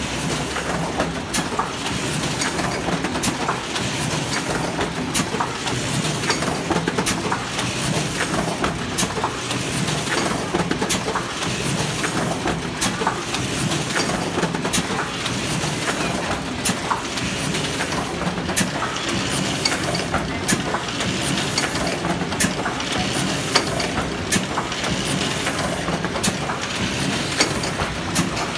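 Sheet-fed offset printing press running: a steady mechanical clatter and air hiss full of small rapid clicks, with a sharper click about every two seconds.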